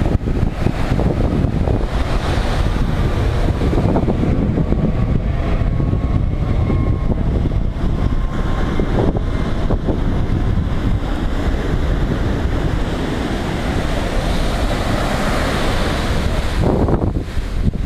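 Wind buffeting the microphone over the steady rush of ocean surf breaking on the shore.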